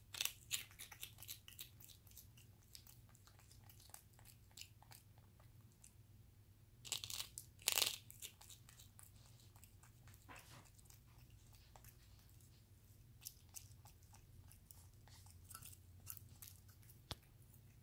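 Capuchin monkey crunching and chewing a monkey biscuit: a run of small, crisp crunches, with two louder bites about seven seconds in.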